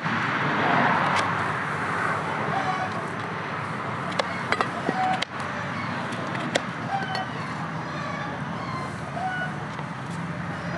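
Plastic spice shakers being shaken and set down over a bowl of minced meat, giving a few sharp clicks and taps over steady outdoor background noise, with a few short chirps.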